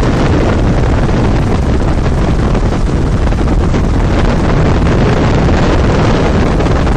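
Helicopter in flight heard from inside the cabin: engine and rotor running with wind rushing past, a loud steady drone.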